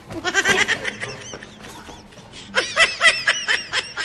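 Laughter in two bursts: one in the first second, then a run of quick, high-pitched ha-ha-ha pulses starting about two and a half seconds in.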